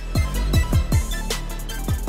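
Electronic outro music: deep bass hits that fall sharply in pitch, about five in two seconds, over a steady low bass.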